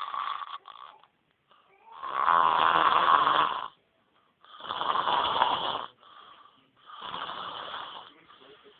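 A man snoring in deep sleep: three long snores about two and a half seconds apart, the first of them the loudest, with the tail end of another at the very start.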